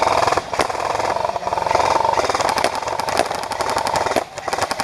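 Electric airsoft rifle firing full-auto in long sustained bursts, a rapid buzzing rattle. It pauses briefly near the end and then fires again.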